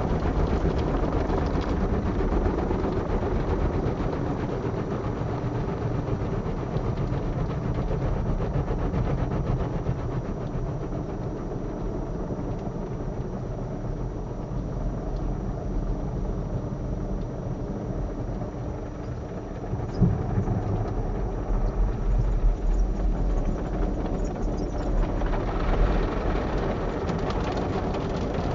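Automatic car wash heard from inside the car's cabin: a steady low rumble of the wash machinery and water on the body, with a few knocks in the second half. Near the end a louder hiss joins as a rotating brush scrubs across the windscreen.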